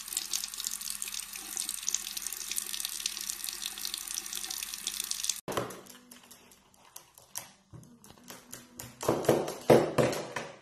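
Tap water running in a steady stream into a sink, cutting off abruptly about five and a half seconds in. Scattered light knocks and clatters follow as a parrot handles a corded computer mouse on a table, louder near the end.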